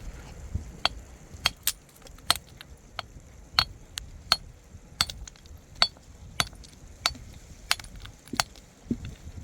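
A metal hand tool striking hard material in a steady working rhythm, about a dozen sharp ringing clinks roughly two-thirds of a second apart.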